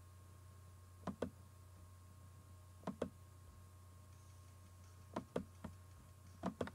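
A computer mouse double-clicked four times, each a pair of short sharp clicks, over a steady low electrical hum.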